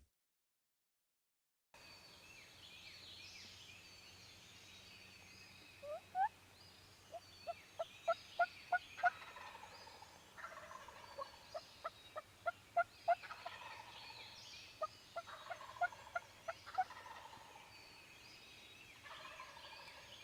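Turkey calling in three runs of short, evenly spaced notes, about three a second, over faint songbirds chirping in the background.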